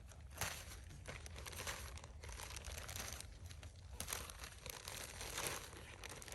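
Footsteps crunching in snow at a walking pace, one crunch every half-second to a second.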